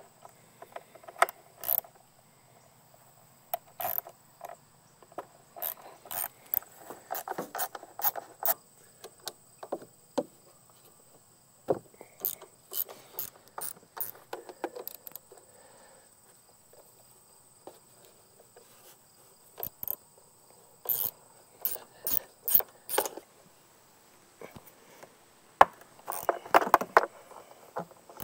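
Ratchet wrench clicking in short runs with pauses, mixed with small knocks and rattles, as the bolts holding the riding mower's engine cover are loosened.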